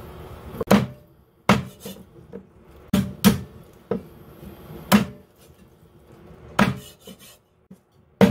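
Chinese cleaver chopping raw bone-in chicken into pieces on a round wooden chopping block: a series of heavy, irregularly spaced chops with a few lighter taps between them.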